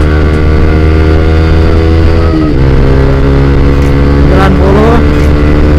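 Motorcycle with an RC X-Speed long aftermarket exhaust running at road speed while riding. The engine note holds steady, dips briefly about two and a half seconds in as with a gear change, then pulls on.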